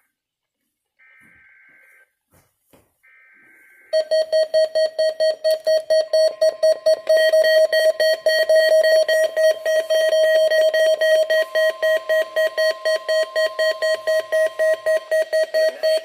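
NOAA weather radio receiving a Required Weekly Test: two short buzzy SAME digital header bursts, then about four seconds in the radios' built-in alert beepers start a loud, rapid pulsing alarm beep that continues, with a faint steady tone underneath through most of it.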